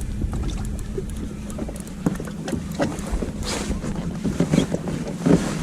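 Strong wind buffeting the microphone aboard a small fishing boat, with a steady low hum underneath and scattered short knocks and splashes of water against the hull.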